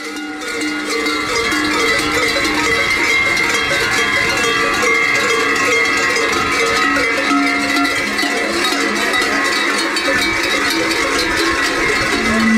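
Large cowbells clanging together in a continuous din, the bells worn on the belts of kurenti, the shaggy sheepskin-costumed figures of Slovenian carnival, jangling as they move.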